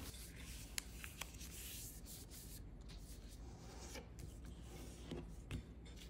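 Faint rubbing and rustling of copy paper being folded and pressed into creases by hand, with a few soft ticks.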